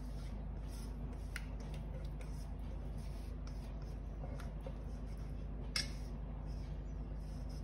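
Silicone spatula scraping thick cream-cheese batter out of a stainless steel mixing bowl: soft, wet scrapes, with one sharp click a little before six seconds in, over a steady low hum.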